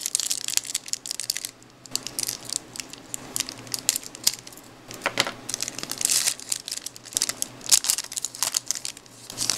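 Foil wrapper of a baseball card pack crinkling and being torn open by hand, in several spells of crackling with short pauses between them.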